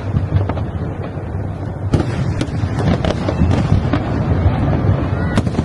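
Aerial fireworks going off: a rapid run of bangs and crackles over a continuous low rumble, with a sharper bang about two seconds in.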